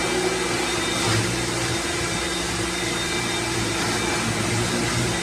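Lavor Fast Plus 130 electric pressure washer running steadily under load: the motor and pump hum over the hiss of the water jet from the turbo nozzle.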